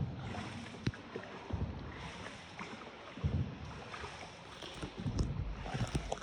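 A small paddled boat on the water, with a steady wash of water and irregular low knocks and splashes every second or two.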